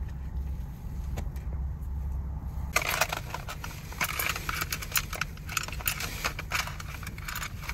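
A low steady rumble, then from about three seconds in a dense run of small clicks and clatters as dishes and cooking gear are handled while the meal is served.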